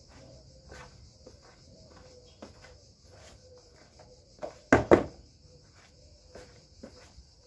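Crickets trilling steadily, with scattered knocks and clatter of things being moved and set down. Two loud thuds in quick succession a little past halfway are the loudest sounds.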